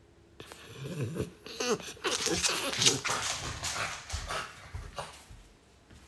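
French bulldog vocalizing. A run of wavering, pitched sounds begins about half a second in, and a louder, breathier, noisier stretch follows around two to three seconds. Smaller sounds trail off near the end.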